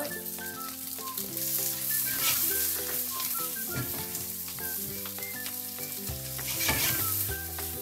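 Sliced onions and spring onions sizzling in a very hot, oiled pan as they are stir-fried, stirred and tossed with a spatula, with a few short knocks of the spatula against the pan.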